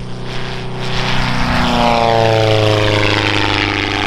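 Thatcher CX4's Volkswagen-based engine and propeller flying past low, growing louder and then dropping in pitch about two seconds in as it goes by.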